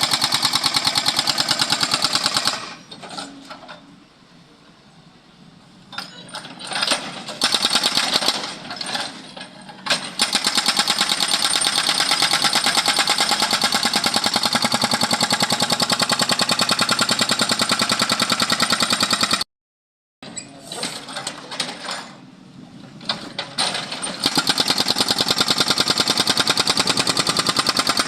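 Excavator-mounted hydraulic breaker (jack hammer) hammering road pavement in fast, even strokes. It stops twice for a few seconds, leaving quieter, irregular knocks and machine noise in the gaps.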